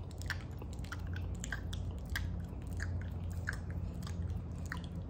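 Wet kissing sounds: irregular lip smacks and squelches, about two or three a second, over a steady low hum.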